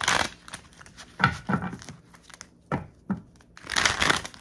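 Tarot cards being shuffled and handled, coming in short rustling, crinkling bursts; the loudest are at the start and again near the end.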